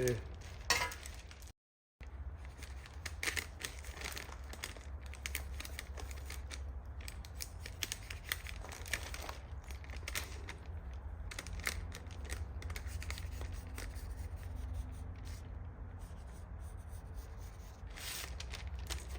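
Scissors snipping through baking paper to cut out a pattern, in irregular short cuts with the paper crinkling and rustling, over a steady low hum.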